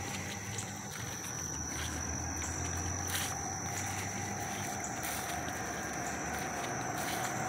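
Insects singing one continuous high-pitched drone, over a low steady rumble of traffic on the highway bridge overhead.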